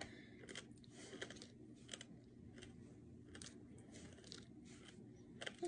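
Faint, irregular crunches of a dried blacktail scorpion being chewed.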